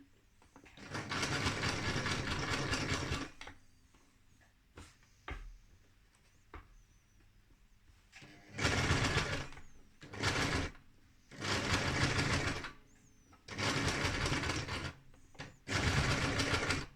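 Sewing machine running a zigzag stitch in stop-start runs. One longer run of about two and a half seconds near the start, then, after a pause with a few small clicks, five shorter runs with brief pauses between.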